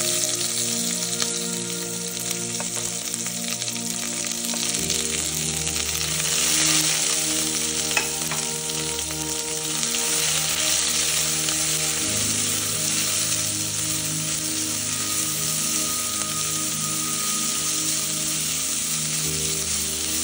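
Sliced onions frying with a steady sizzle in hot oil with whole spices in an enamelled cast-iron pot, stirred with a spatula.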